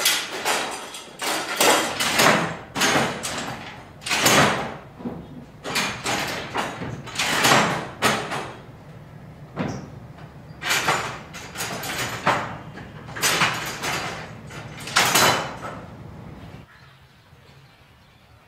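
Levers of a mechanical signal-box lever frame being thrown, each stroke a metallic clank and scraping rattle of lever, rods and wires, a dozen or so in irregular succession that stop shortly before the end.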